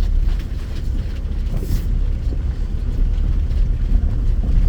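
Land Rover Discovery driving along a rough off-road track: a steady low rumble of engine and running gear, with scattered knocks and rattles and a brief hiss a little under halfway through.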